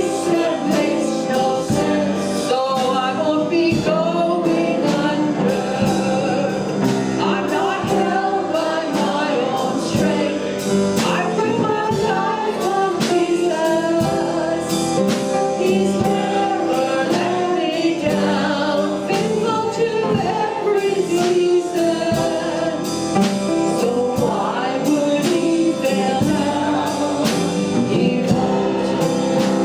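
Gospel worship song: a group of voices singing together over sustained instrumental chords and a steady beat.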